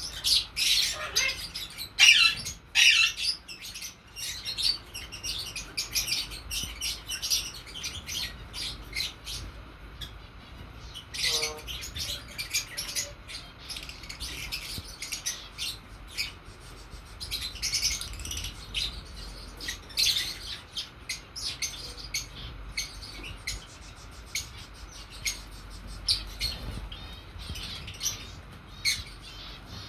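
Lovebirds chirping in rapid, near-continuous short high calls, loudest in the first few seconds.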